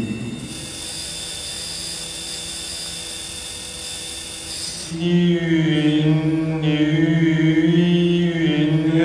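A breathy, hissing sound for about the first five seconds. Then a low, chant-like vocal drone held on one pitch, wavering slightly.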